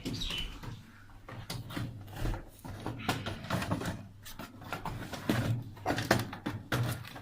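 Irregular clicks, taps and knocks of hardware being handled while a motherboard is fitted into a desktop PC case.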